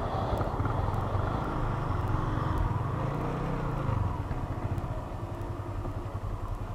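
Small motorcycle engine running under way, with wind noise on a helmet-mounted microphone. The engine note rises and falls about halfway through, then runs quieter as the bike slows toward a junction.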